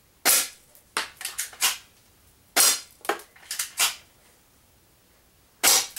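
Airsoft gun fired three times, a few seconds apart. Each shot is a sharp crack followed by several quick, lighter clicks of BBs striking the face of a wall clock.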